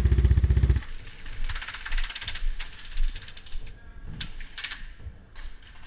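Airsoft electric gun firing full-auto, a fast rattling burst of rapid shots ending about a second in. Further quieter full-auto bursts and scattered shots follow.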